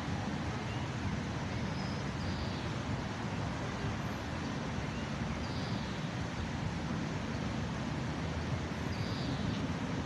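Steady city traffic noise: a continuous wash of road rumble with no single vehicle standing out. A few faint, short high-pitched chirps sit over it.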